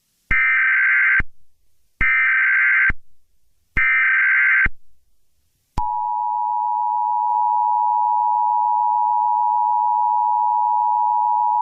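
Emergency Alert System alert: three roughly one-second bursts of SAME header data tones, a harsh digital screech, about two seconds apart. About six seconds in, the steady two-tone EAS attention signal (853 and 960 Hz) comes on and holds.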